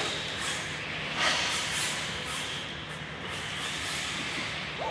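RC car driving on a clay track: a steady hiss of tyres and motor, with a louder rush about a second in as it accelerates or lands.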